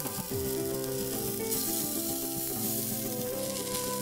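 Food sizzling on a hot gas grill, a steady hiss, under background music with a slow melody.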